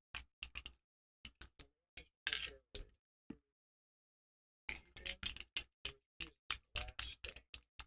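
Irregular light clicks and taps of small metal parts as a pin-tumbler door lock is handled for disassembly, with a pause of about a second in the middle.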